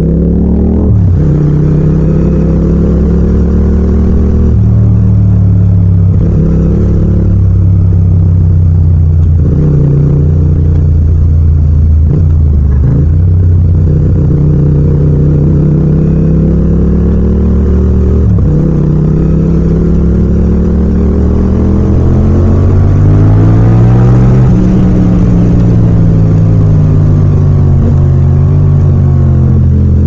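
Yamaha MT-07's 689 cc parallel-twin engine pulling in low gear at city speed, its pitch rising with the throttle and dropping sharply several times as it is rolled off. In the second half it climbs steadily for a few seconds before easing back.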